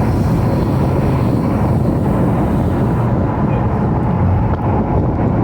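Ford Mustang GT's V8 engine and road noise while cruising, a steady low drone.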